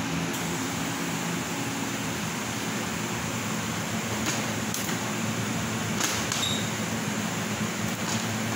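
Steady fan noise with a low hum, broken by a few short rustles and clicks about four, six and eight seconds in as cut pieces of the board are lifted from the sheet.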